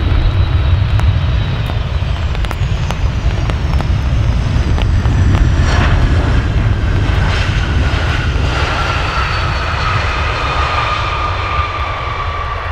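Avro RJ100 jet landing and rolling out, its four Honeywell LF507 turbofans giving a steady low rumble. Over the rumble sits a whine that slowly falls in pitch, and the sound eases off toward the end.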